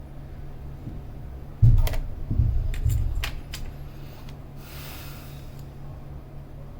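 Small tools and parts being handled on a workbench during repair work: a loud knock about one and a half seconds in, then a few sharp metallic clicks and clatter, and a short hiss, over a steady low hum.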